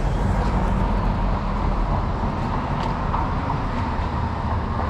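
Steady low rumble of a vehicle engine running, with a faint steady whine over it.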